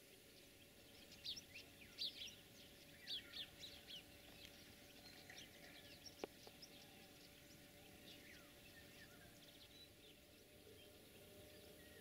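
Small birds chirping over a faint, steady outdoor hiss, in a quick run of short chirps in the first few seconds, then sparser. One sharp click about six seconds in.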